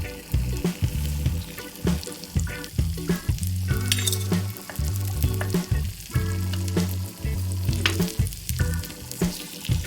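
Chicken frying and sizzling in a small miniature pan, with occasional clicks from stirring, over background music with a heavy bass line.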